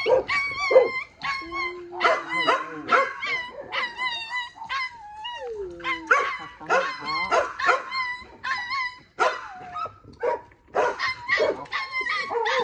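Small puppy yelping and crying in a rapid run of short, high-pitched cries, several a second, with a couple of longer drawn-out wails among them. The puppy is crying out in fear while held for a vaccination, before the needle has gone in.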